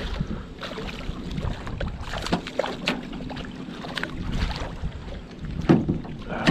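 Hooked smallmouth bass thrashing and splashing at the surface beside the boat, over a low rumble of wind on the microphone. A louder splash comes near the end as the fish is scooped into the landing net.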